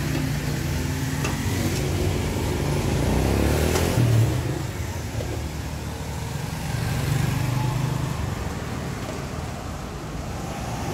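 Road traffic: the engines of passing vehicles, a steady rumble that swells about three to four seconds in and again about seven seconds in.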